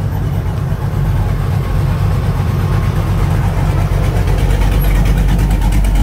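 Classic 1950s sedan's engine running with a low, steady rumble as the car rolls slowly past close by, growing louder toward the end.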